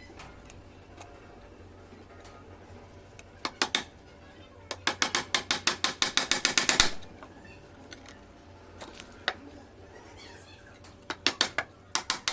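Runs of rapid mechanical clicking, like a ratchet: a brief pair, then a run of about two seconds at roughly ten clicks a second, then a few more clicks near the end.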